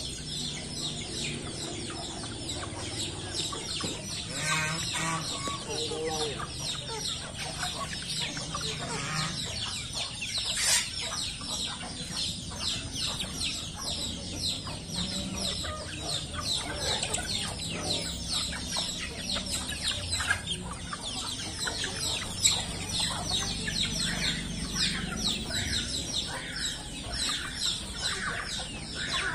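A flock of young bantam chickens clucking and calling continuously while they feed on scattered grain, with many short high calls overlapping throughout.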